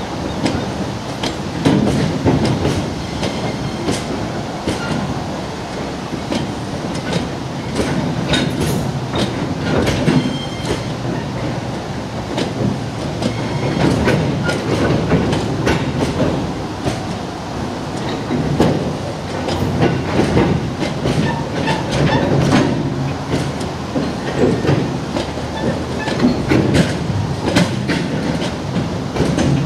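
A stone train's bogie aggregate hopper wagons rolling slowly past. The wheels click and knock again and again over rail joints above a steady rumble.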